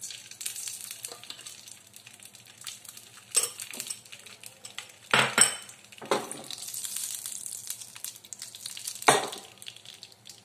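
Ghee melting and heating in a non-stick frying pan on a gas stove, giving a steady light sizzle. Several sharp clinks of kitchenware against the pan cut through it, the loudest about halfway through and again near the end.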